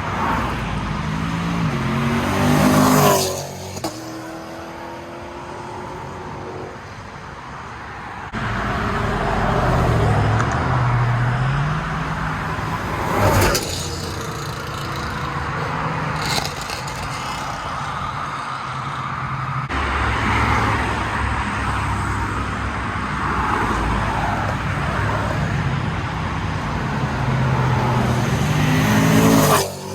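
Chevrolet Camaro SS V8 running through newly fitted 2-inch Speed Engineering headers and an X-pipe, revving up in rising sweeps that cut off sharply, the loudest near the start and near the end.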